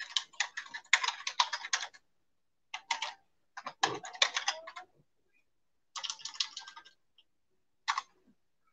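Typing on a computer keyboard: several short bursts of rapid key clicks with brief pauses between them.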